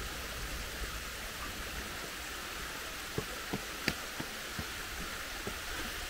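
Steady rushing hiss of a waterfall and its stream. From about halfway through, footsteps knock on the stone steps, a few sharp steps roughly a third of a second apart.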